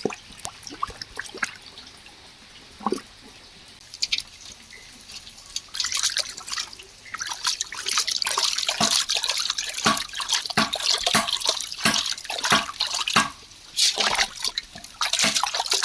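Water splashing and dripping as large pieces of cut fish are washed in a big pot, with the splashing getting busier and louder from about six seconds in.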